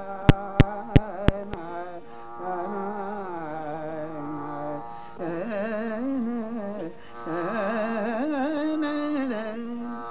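South Asian classical-style music: a slow melody of long held notes that waver and slide in pitch. It opens with four sharp strokes in the first second and a half.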